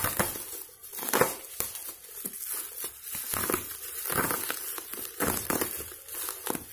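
Plastic bubble wrap crinkling and tearing as hands pull it off a parcel, in uneven rustles and crackles.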